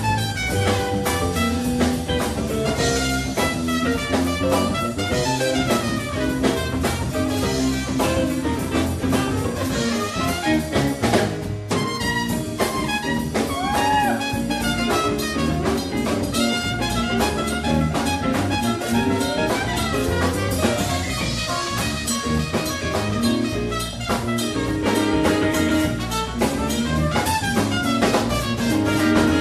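Live band playing: trumpet over electric guitars and a drum kit.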